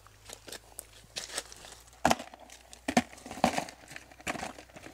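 Plastic crayfish trap handled and shaken upside down over a plastic bucket, its mesh knocking and crayfish clattering out. It makes a run of irregular clicks and knocks, louder from about two seconds in.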